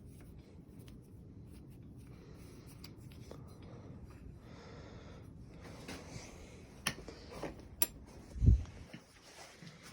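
Quiet handling noises from work on a BMX's stem and fork with hand tools: rubbing, a few sharp metal clicks near the end, and one dull thump about eight and a half seconds in.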